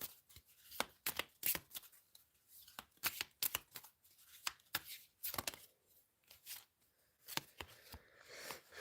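Oracle or affirmation cards being shuffled and handled: a run of irregular, crisp card snaps and clicks with short pauses between.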